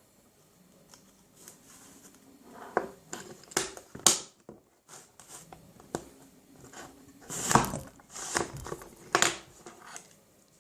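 Hand-operated cigarette filling machine packing a loose tobacco-and-clove mix into an empty cigarette tube: a handful of sharp plastic clacks and scrapes, one about four seconds in and a cluster later on, with rustling of the loose mix between.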